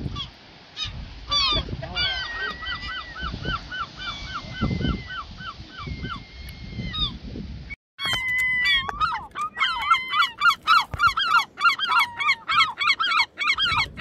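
Herring gulls calling: rapid series of repeated yelping calls from several birds at once. After a short break about eight seconds in, the calls come louder and faster and overlap, as the flock crowds in to be fed.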